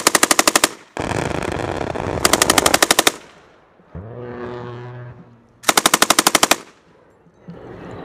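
MK-48 belt-fed 7.62 mm machine gun firing three short bursts of about ten rounds each: one at the start, one about two seconds in and one near six seconds. A continuous loud rush of noise fills the gap between the first two bursts.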